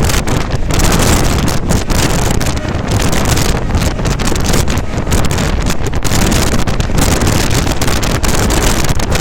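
Heavy wind buffeting the microphone over the steady running noise of an express train moving at speed.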